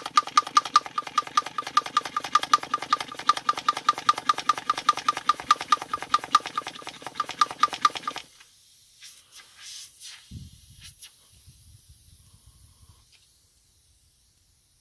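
Small electric air pump running with a rapid, even pulsing, inflating a stroller inner tube, and stopping abruptly about eight seconds in. Faint handling noises and a soft thump follow.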